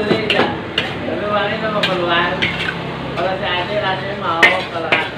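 Metal spatula clanking and scraping against a steel wok as noodles are stir-fried, with irregular sharp knocks several times a second over a steady low hum.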